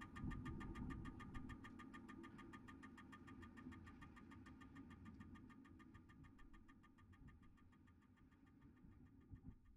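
Experimental improvised music fading out: a fast, even ticking pulse over a low rumble, both dying away near the end.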